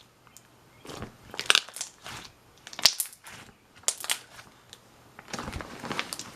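Thick slime being squeezed and pressed by hand, giving sharp pops and crackles as air pockets burst. There are a few separate squishes, then a denser run of crackling near the end.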